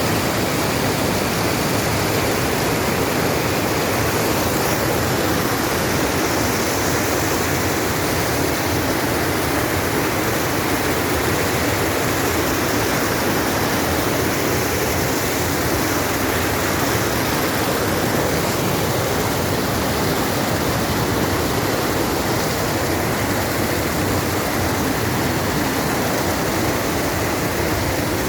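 Waterfall: water falling and rushing in a loud, steady, unbroken wash of noise.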